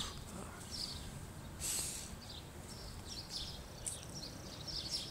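Small birds chirping repeatedly over a steady outdoor background hiss, with a brief louder hiss about a second and a half in.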